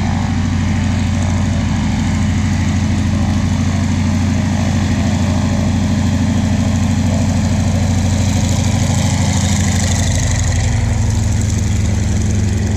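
North American T-6 Texan's Pratt & Whitney R-1340 nine-cylinder radial engine running at taxi power: a loud, steady throb with a fast, even beat.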